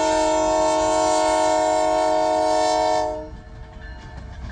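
Train horn sounding one long, loud chord of several notes that ends about three seconds in, after which the train's rolling noise goes on more quietly.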